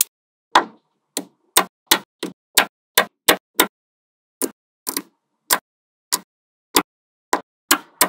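Small magnetic balls clicking as rings of them snap onto a growing column: a quick, irregular run of sharp clicks, about two or three a second, with a brief pause about halfway.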